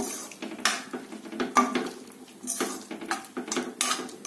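A steel spoon stirring a thick, wet dal and greens mixture in a stainless steel pot, clinking and scraping against the pot's sides and bottom about eight times at an uneven pace.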